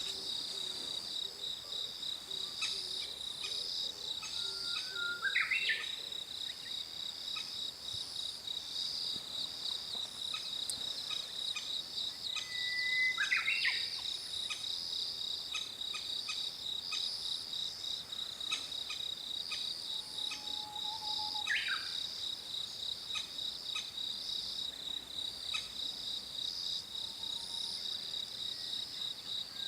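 Crested kingfisher calling three times, about eight seconds apart, each a short sharp call: an adult with food in its bill coaxing its nearly fledged chick to the nest-burrow entrance. Insects trill steadily throughout.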